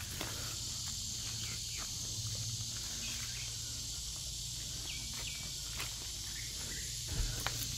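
Outdoor ambience dominated by a steady high-pitched insect drone, over a low steady hum, with a few faint chirps and light clicks.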